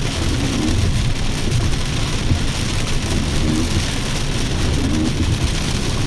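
Rain falling steadily, an even hiss with a constant low rumble underneath.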